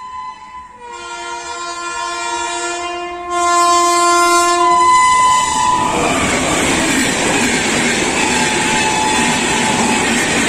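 WAP-5 electric locomotive sounding one long horn blast as it approaches, growing louder about three seconds in and ending about six seconds in as it reaches the crossing. The locomotive and its express passenger coaches then pass at speed with steady, loud wheel-on-rail noise.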